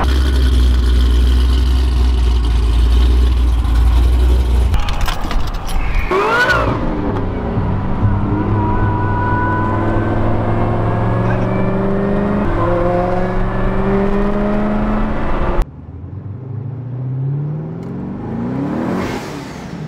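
C6 Corvette V8 engines: a deep, steady idle rumble, then a quick swoop of a car going by, then an engine pulling hard with its pitch rising in steps through the gear changes. About two-thirds of the way through the sound breaks off suddenly and a quieter rising pull follows.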